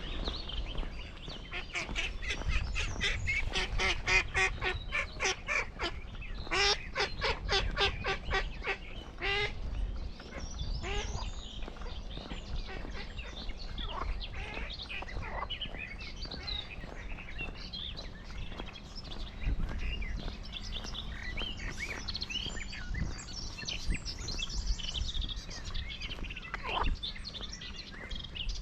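Waterfowl calling in a fast run of repeated honking calls, about four a second, for the first nine seconds or so. After that, small birds chirp and whistle over a low rumble.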